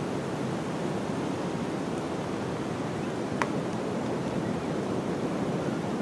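Steady rainforest rain ambience: an even rushing hiss, with one sharp tick about three and a half seconds in.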